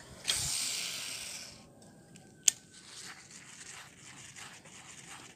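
A fishing cast: a high hiss of line paying out that fades away over about a second, then a single sharp click about two and a half seconds in.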